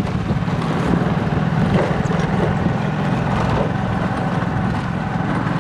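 Steady rumble of a vehicle's engine and road noise, running at an even level.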